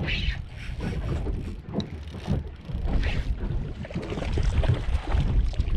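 Wind buffeting the microphone over water slapping against a small boat's hull, an uneven low rumble with scattered brief splashy noises.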